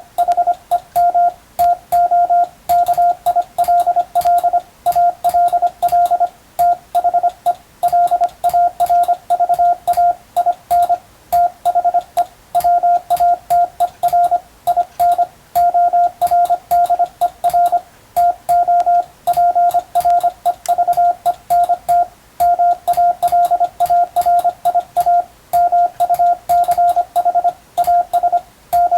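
Hand-keyed Morse code (CW) in international Morse: a single steady tone of about 700 Hz switched on and off in dots and dashes at a brisk, even pace, sending practice telegram text, with sharp clicks on the keying.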